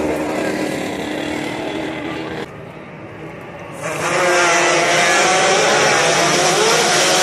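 Two-stroke Yamaha DT 200 racing motorcycles on a street circuit. One engine fades away over the first couple of seconds; after a quieter stretch, a pack of engines comes in loud about four seconds in, many buzzing engines revving up and down together as they approach.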